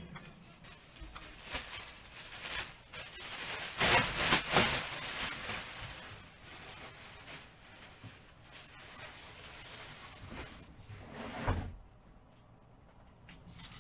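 Rustling and light knocks of things being handled, loudest a few seconds in, with another knock later and a quieter stretch near the end.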